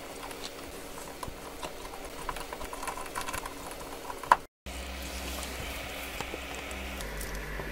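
Light clicks and scrapes of tweezers and a precision screwdriver working on the metal shield plate of an iPhone SE display assembly, with a sharper click a little over four seconds in. After a brief dropout, a steady low hum.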